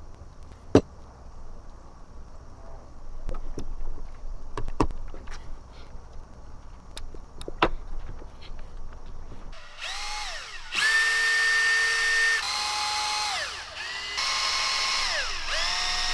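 Power drill spinning a fine bit to clear hardened clear coat out of a lure's line tie eye. Its whine runs three times in the second half, rising as the trigger is squeezed and falling away as it is released. Before that come a few scattered sharp clicks of hand tools on the lure.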